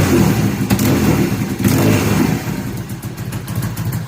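Kawasaki KZ750 parallel-twin engine running through a Delkevic aftermarket exhaust, a crisp exhaust note with a busy mechanical clatter from the engine. It runs at raised revs, then drops back toward tickover about two seconds in.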